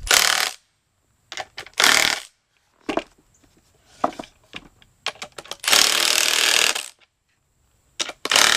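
A handheld power tool run in short bursts on steel all-thread hardware: a brief burst at the start, another about two seconds in, a longer one of about a second past the middle, and another near the end, with sharp metal clicks between them.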